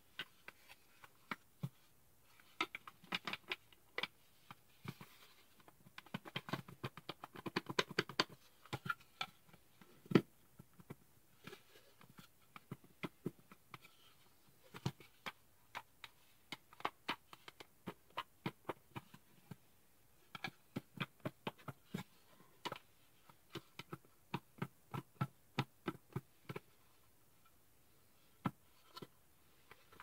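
Wooden puzzle box with tilt latches being tilted and turned in the hands: a string of irregular small clicks and light wooden knocks, with a dense run of rattling clicks about six to eight seconds in.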